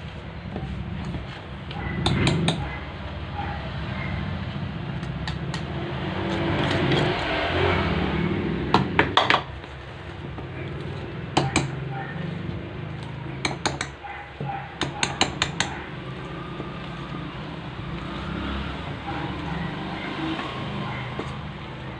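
A metal fork stirring thick batter in a stainless steel bowl, scraping the bowl and striking its side in sharp clinks now and then, some in quick runs of three or four.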